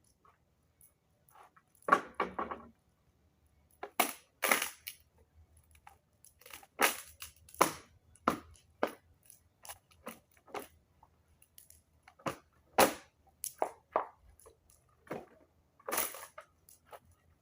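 Irregular sharp cracks and crunches, some single and some in quick clusters, spaced a second or two apart.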